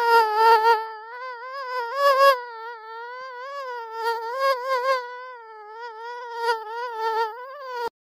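Mosquito buzzing in flight: a thin whining hum with a slightly wavering pitch that grows louder and softer several times, then cuts off suddenly near the end.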